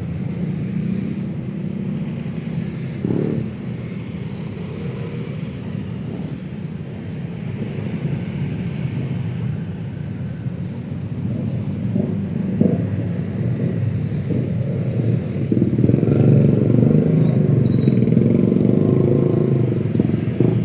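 Road traffic on a city street: a steady rumble of passing motor vehicles, louder for a few seconds near the end as traffic passes close.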